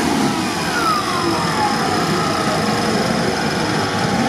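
Toyota Land Cruiser 70-series off-road truck's engine running steadily while the truck sits stuck in pond water against a mud bank, with a whine falling in pitch about a second in.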